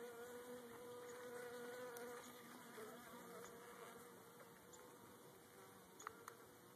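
Faint, steady buzzing of Italian honeybees flying close by, with two light clicks about six seconds in.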